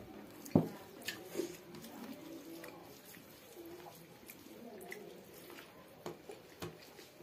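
Close-up mukbang eating sounds: wet chewing and small lip smacks while eating spicy pork ribs with rice by hand, with scattered light clicks. One loud knock about half a second in, as a small bowl of curry is set down on the table.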